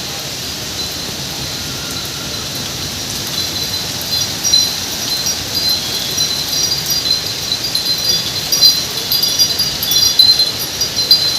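Wind chimes ringing in quick, irregular clusters of high tinkling notes over the steady hiss of heavy rain; the chimes come in about three seconds in and keep ringing.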